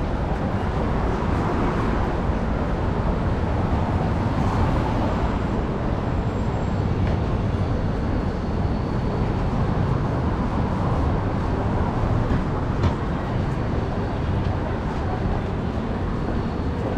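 Steady traffic noise of a busy city street, with vehicles running past, and one brief knock about three-quarters of the way through.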